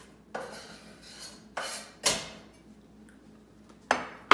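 Wooden cutting board and knife knocking and scraping against a soup pot as sliced celery is pushed off into it: a handful of separate sharp knocks and scrapes, the loudest near the end.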